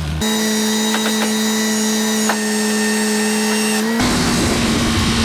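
Electric power tool motor running at a steady pitch, in two stretches joined by a sudden cut about four seconds in.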